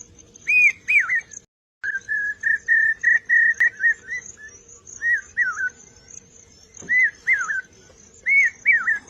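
A bird singing clear whistled notes, mostly in pairs of arching, down-slurred phrases, with a quick run of short even whistles in the middle, over a steady thin high-pitched tone. The sound cuts out completely for a moment about a second and a half in.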